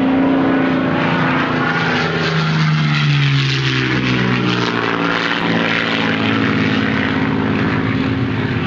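Parkzone T-28 Trojan RC plane's brushless electric motor and propeller running in flight, a steady buzzing whine whose pitch dips partway through as the plane passes.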